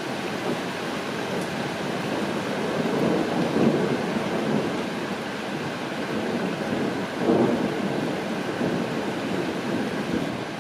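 Steady rain falling, with rumbles of thunder that swell up twice: about a third of the way in and again about two-thirds of the way in.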